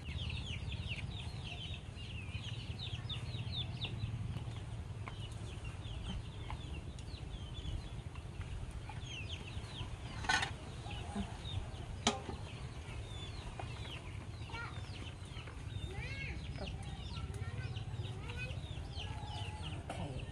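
Chickens clucking and peeping, with many short high chirps throughout over a steady low rumble. Two sharp knocks come about ten and twelve seconds in.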